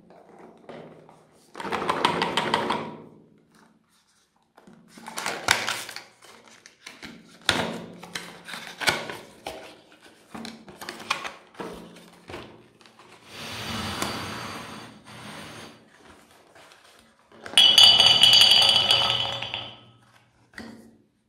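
Cardboard box and clear plastic tray of foil-wrapped chocolate eggs being opened and handled in short bursts of rustling, crackling and knocks. Near the end the eggs are tipped into a plastic bowl with a loud clattering rush lasting about two seconds.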